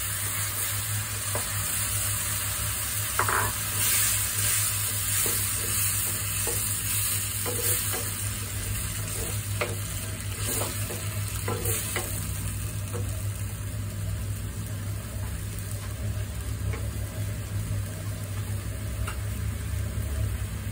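Ground tomato sizzling in a hot non-stick wok with sautéed methi leaves, a wooden spatula scraping and knocking against the pan as it is stirred, over a steady low hum.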